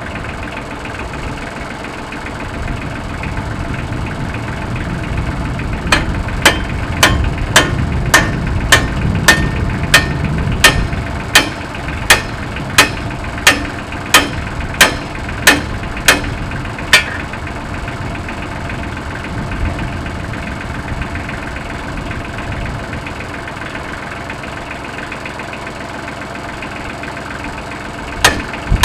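Tractor engine running steadily at idle. Over it come loud, sharp knocks about one and a half a second, for about ten seconds starting some six seconds in, then again briefly near the end.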